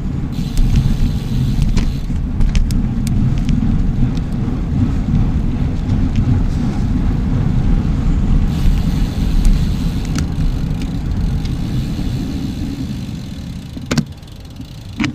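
Low wind rumble on the microphone of a camera riding on a moving bicycle, easing about fourteen seconds in, with a few sharp clicks and ticks from the bike.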